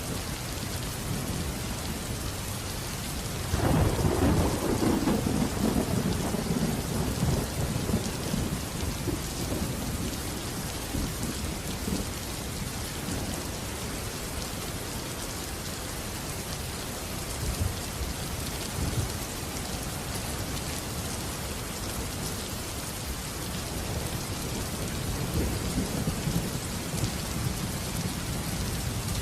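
Steady heavy rain hiss with a thunderclap about three and a half seconds in, rolling into a deep rumble that fades over several seconds, and a fainter rumble of thunder near the end.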